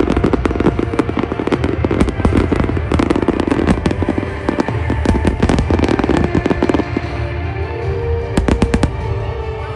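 Aerial fireworks bursting in quick succession, a dense run of sharp bangs and crackles over a deep rumble. It thins out after about seven seconds, with a few loud cracks near the end. Music plays underneath.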